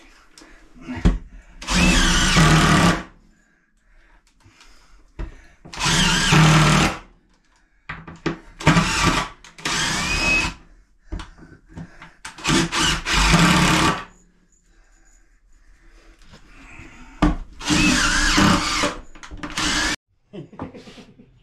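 Cordless drill-driver driving screws through a plastic toilet flange into the subfloor, in about five runs of one to two seconds each with short pauses between them.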